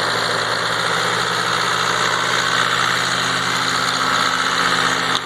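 Tractor backhoe engine running steadily close by, with an even low hum and a broad hiss above it, cutting off abruptly at the very end.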